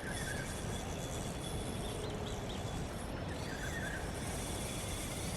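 Steady low rumbling outdoor background noise, with a few faint short high chirps scattered through it.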